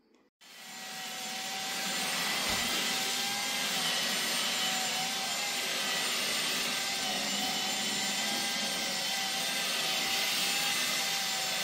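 Drill spinning a carpet brush that scrubs shampoo into a wet cloth seat: a steady motor whine that wavers a little under load over the rush of the bristles. It starts about half a second in and builds over the next second.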